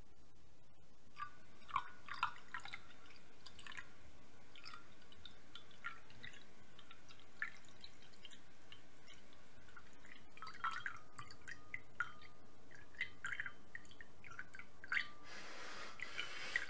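Coffee poured from an insulated carafe into a small cup, heard as faint scattered drips and small splashes, with a denser stretch of pouring near the end.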